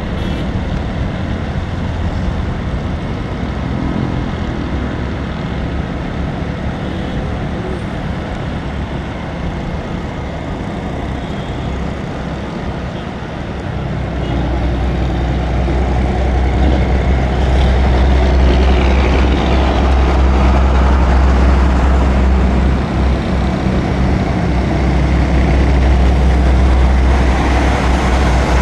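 Road traffic heard from a moving motorcycle: engines and tyre noise. About halfway through, a heavier, louder low rumble comes in as the bike rides close behind and then alongside trucks.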